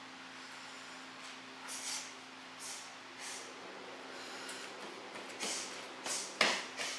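A karate student performing a kata: a series of short, sharp hissing bursts of forceful breath and uniform snap with each technique, irregularly spaced, with the loudest burst about six and a half seconds in.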